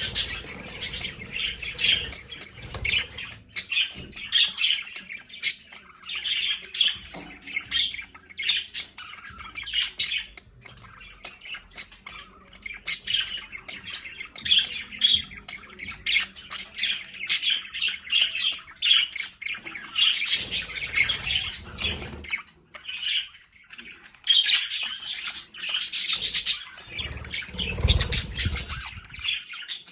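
A flock of budgerigars chattering continuously, a dense stream of rapid chirps, warbles and squawks, with two louder stretches of low rustling noise about two-thirds of the way in and near the end.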